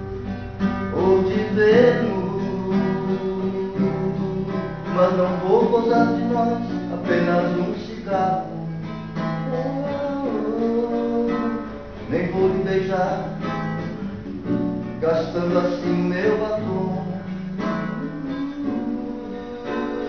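A man singing while strumming chords on an acoustic guitar.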